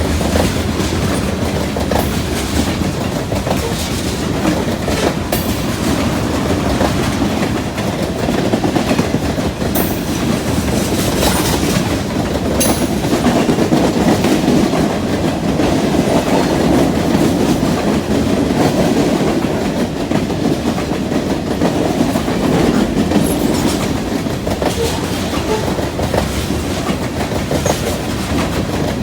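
Freight train cars rolling past with a steady rumble, wheels clicking over the rail joints now and then.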